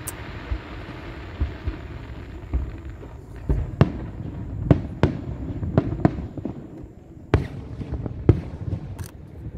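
Fireworks going off in a run of sharp bangs, about a dozen at uneven intervals, starting a few seconds in over a low rumble.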